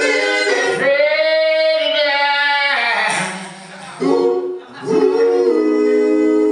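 Men's vocal group singing a cappella in close harmony into microphones. The singing thins out and drops in level for about a second midway, then several voices hold a sustained chord.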